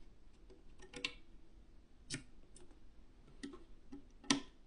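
Faint, scattered clicks and taps of an MSI Spatium M470 M.2 SSD being handled and seated into its motherboard M.2 slot, with sharper clicks about one second, two seconds and four seconds in.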